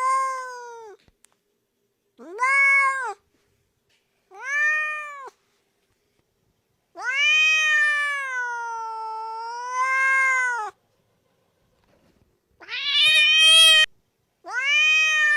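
Domestic cat meowing: a string of six meows separated by short silences. The meow about seven seconds in is a long, wavering one lasting nearly four seconds.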